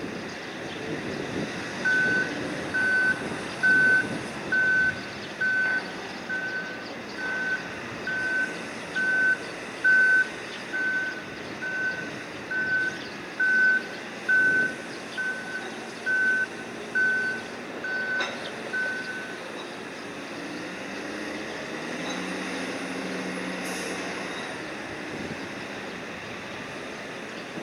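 A vehicle or machinery warning alarm beeping on one steady tone about once a second, stopping about two-thirds of the way through, over a steady rumble of harbour cargo machinery.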